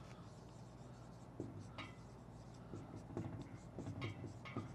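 Dry-erase marker writing on a whiteboard: a series of short, faint squeaking and scratching strokes as words are written out.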